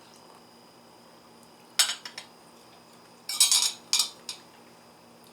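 Cutlery clinking against dishware as the tea's softened apricots are eaten: a couple of light clinks about two seconds in, then a busier cluster of clinks and scrapes a second or so later.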